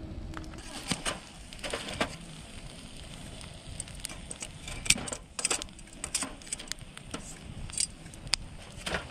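Wood fire crackling in a small fire stand, with irregular knocks, clacks and clinks as split firewood is shifted with long metal tongs.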